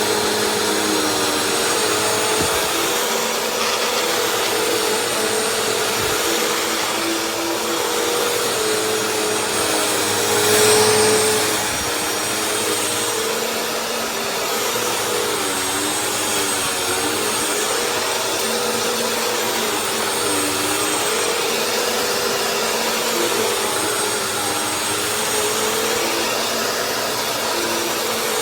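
Vacuum cleaner running steadily while being used, its motor tone wavering slightly, with a brief louder surge about eleven seconds in.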